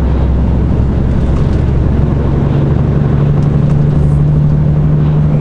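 A heavy lorry's diesel engine running steadily under way, heard from inside the cab, with road noise underneath. The engine note rises a little about halfway through and then holds.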